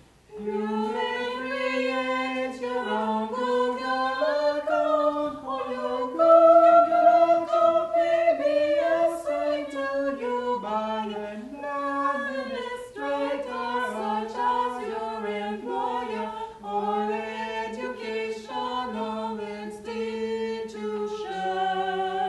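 Three-voice a cappella choir, a man and two women, singing from songbooks without accompaniment, held notes moving up and down in a slow line.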